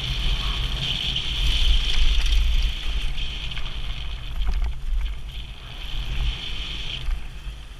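Wind rushing over a helmet-mounted camera's microphone as a downhill mountain bike runs fast over a dirt and gravel trail, with steady tyre and bike rattle noise and a few short knocks from rough ground about halfway through.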